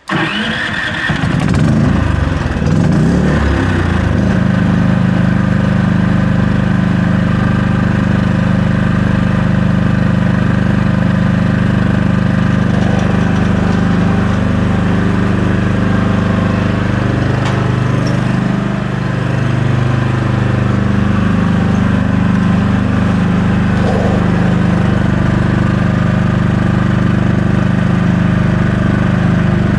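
Champion 5500 dual-fuel inverter generator's engine starting, running unevenly for a few seconds before settling into a steady run on propane. Its pitch wavers briefly about 18 seconds in.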